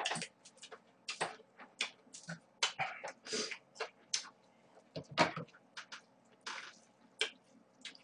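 Close-miked eating noises: irregular short wet smacking and chewing sounds from the mouth, with a few longer breathy sounds.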